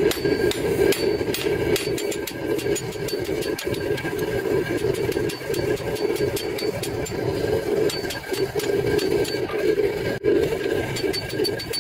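Hammer blows on a red-hot leaf-spring steel axe head on an anvil, coming in quick series with short metallic rings, over the steady roar of a gas forge burner.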